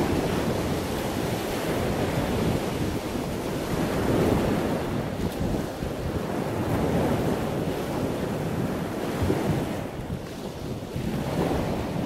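Wind buffeting the microphone over a steady rush of sea water.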